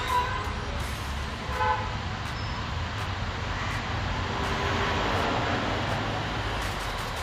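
Steady road traffic rumble with short vehicle horn toots, one right at the start and another about a second and a half later.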